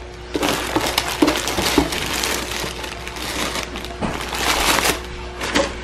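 Clear plastic bags and tissue paper rustling and crinkling as they are handled, in irregular louder bursts.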